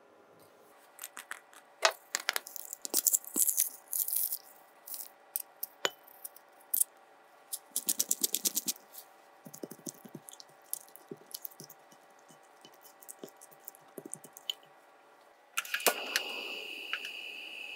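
A metal spoon clinks and scrapes against a small spice jar and a glass bowl, then a glass pepper grinder is twisted in quick runs of clicks. About 15 seconds in, a portable cassette gas stove lights with a sudden burst, and its burner then hisses steadily with a faint high whistle.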